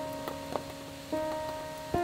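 Background music: slow, held keyboard-like notes, a new one struck about a second in and another near the end, each fading away. A few sharp taps sound beneath it.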